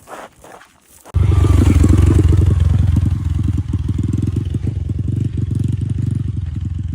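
Footsteps, then about a second in a small motorcycle engine comes in suddenly and runs loud and steady, with a rapid low pulsing.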